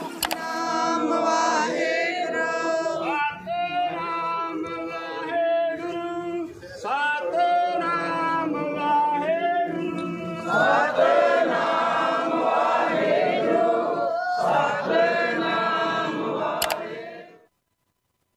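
A group of voices singing together, a sung devotional hymn, stopping abruptly about a second before the end.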